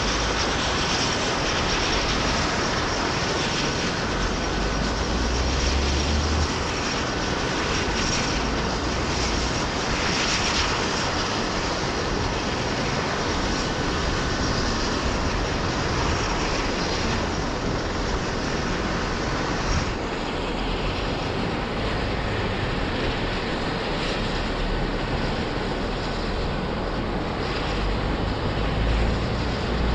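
Airbus EC135 helicopter's twin turbines and rotor running steadily on the pad before takeoff, a continuous whine and rush heard from a distance.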